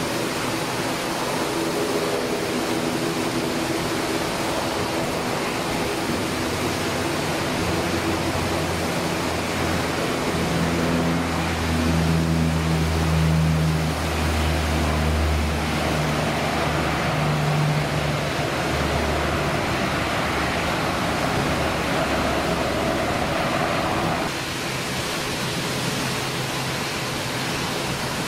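Bombardier Dash 8 Q300 turboprop taking off: its two engines and propellers drone at takeoff power, the low propeller hum building to its loudest midway as the aircraft lifts off and climbs past, then fading. A steady hiss runs under it, and the sound drops suddenly near the end.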